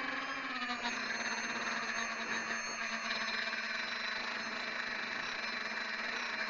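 Electric motors and propellers of a small RC Twin Otter whining steadily in flight, picked up by a camera on its belly, with a hiss of air. The pitch drops slightly about a second in and then holds.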